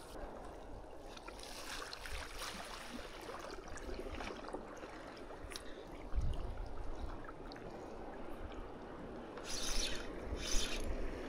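Small waves lapping and trickling against a rock ledge at the shoreline, with a few short hissing splashes near the end.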